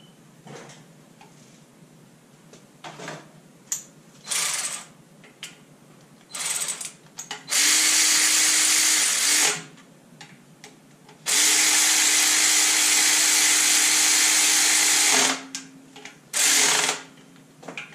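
Handheld power driver running in several short bursts and then two longer steady runs of about two and four seconds, driving in and tightening the oil pump's bolts.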